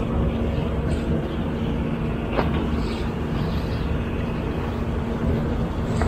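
An engine running steadily with a low, even hum, and a single sharp tick about two and a half seconds in.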